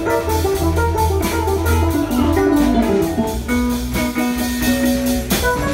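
Live band playing a funk instrumental: a lead line of quick notes over electric bass and a drum kit, settling into one long held note about halfway through.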